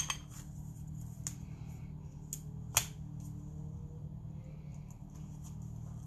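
A few short, light clicks and taps of hands handling card stock and a glue dot on a tabletop, the sharpest a little before halfway, over a steady low hum.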